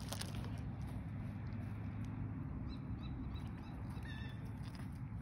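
A young goat drinking from a water tub, making a steady low sound as it drinks.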